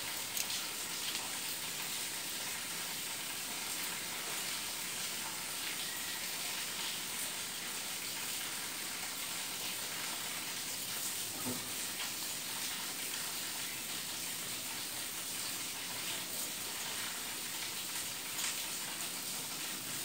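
Steady background hiss, with a few faint ticks.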